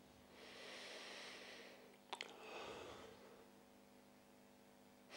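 Near silence over a faint steady electrical hum, with a soft breath into a close microphone early on and a small sharp click about two seconds in, followed by another short breath.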